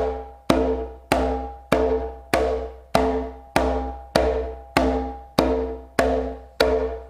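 Open slaps on a Haitian hand drum, struck with the fingertips: about a dozen sharp, ringing strikes at an even, moderate pace, each tone dying away before the next.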